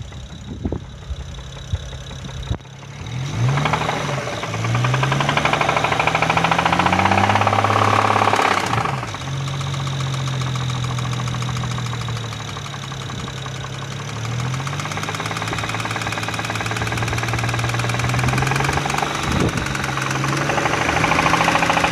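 BMW 335i's N54 twin-turbo inline-six running with a knock. It is revved up a few seconds in and held, drops back to idle around nine seconds, then rises again near the end. The owner suspects the knock is rod knock from a spun bearing.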